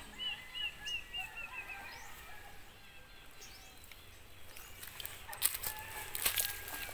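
A bird calls a run of short repeated chirps that come faster and fainter over the first two seconds. Near the end, footsteps crunch and rustle through dry leaves and grass on a trail.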